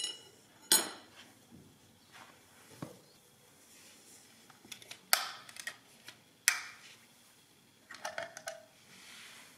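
Steel rod clinking down onto a tile floor with a brief metallic ring, then scattered metal clicks and clacks as the carriage of a Monroe model K mechanical calculator is handled and lifted off. A quick run of rattling clicks comes near the end.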